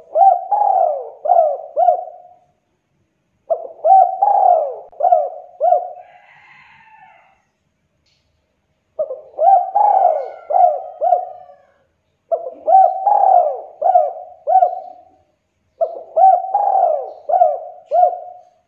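Spotted dove (tekukur) cooing. It gives five song phrases, each a run of four or five hollow coos lasting a couple of seconds, with short pauses between them.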